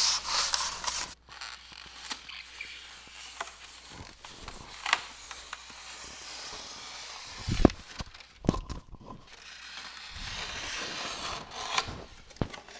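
Foam-and-foil flooring underlayment being smoothed by hand and cut with a utility knife: rubbing and scraping of the sheet, loudest in the first second, with scattered clicks and two sharp knocks a little past the middle.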